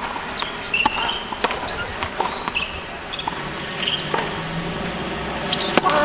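Tennis ball knocking on a hard court and off rackets, about half a dozen sharp knocks, with the loudest hit near the end. Short high chirps sound between the knocks.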